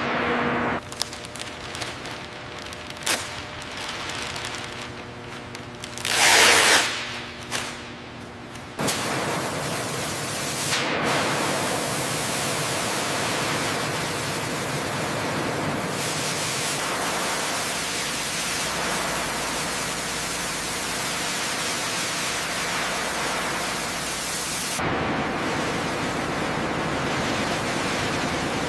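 A few scattered knocks and a brief loud whoosh, then from about nine seconds in a steady loud hiss.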